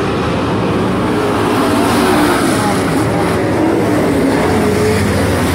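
A pack of street stock race cars running at speed on a dirt oval, engines loud and continuous with their pitch wavering up and down as the cars work through the turns.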